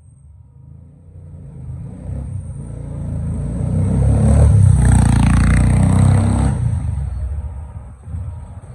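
A motor vehicle passing close by on the street: engine and tyre noise swell up, are loudest about halfway through, then fade away.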